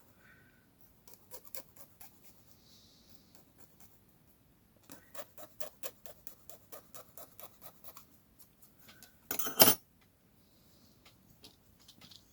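Small hand file working the end of a thin rod to cone it slightly: a run of quick short rasping strokes, about four or five a second, with scattered light clicks and one louder scrape near the end.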